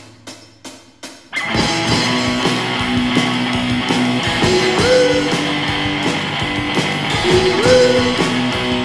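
Rock music with guitar and drums. About a second and a half in, after a few sparse hits, the full band comes in with held, bending guitar notes over a steady beat.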